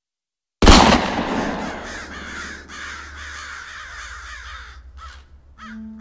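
A sudden loud bang, then a flock of crows cawing over a low rumble, thinning to a few single caws near the end. A low held note comes in just before the end.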